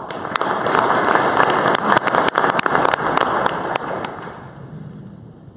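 Audience applauding: dense clapping that holds for about four seconds, then dies away.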